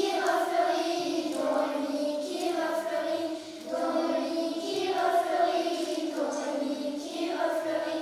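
A group of children singing together in long held notes, with a brief pause between phrases.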